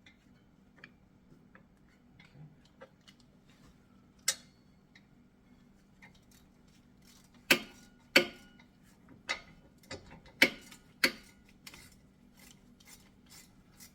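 Scattered sharp metallic clicks and taps from brake caliper parts and hand tools being handled, several of them loud, then a run of light, evenly spaced ticks near the end.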